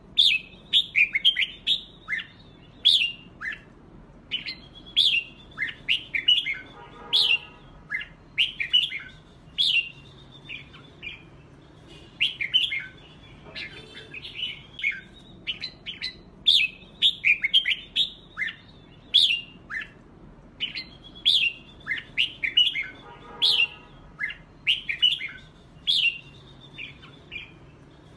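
Red-whiskered bulbul song: quick runs of short, bright, warbling whistles in phrases several seconds long, separated by brief pauses. The same sequence of phrases comes round again about every 16 seconds, with a coarser, lower note in each round.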